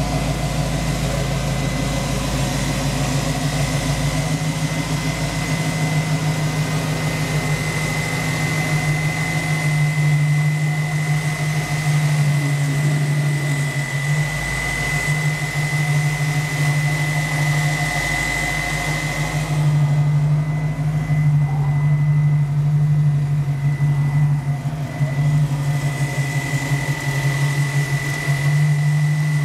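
Ford 289 V8 of a 1966 Mustang idling steadily, its exhaust pulsing in a quick, even rhythm.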